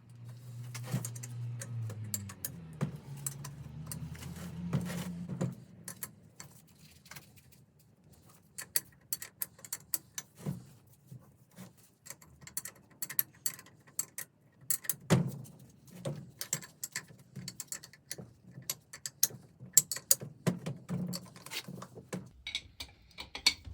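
Irregular metallic clicks and taps from small engine-pump parts being handled and worked back into a tight fit, with a few louder knocks, the loudest about fifteen seconds in. A low hum runs under the first few seconds.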